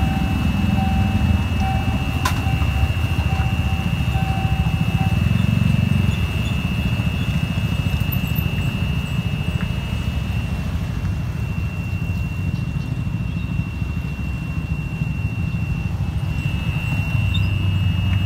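Motorcycles, scooters and cars crossing a railway level crossing, their engines running at low speed, with the rumble swelling as groups pass. A thin, steady high-pitched tone runs under the traffic, and an on-and-off beeping sounds in the first few seconds.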